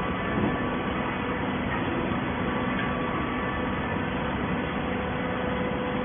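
Baling machine running, a steady mechanical hum and noise with a few faint held tones and no distinct strokes or impacts.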